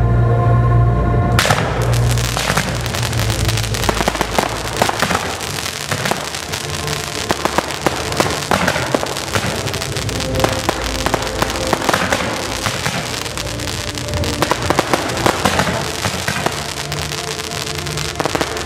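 Fireworks display: a dense stream of rapid cracks and pops from spark fountains and crackling comets, with music playing underneath.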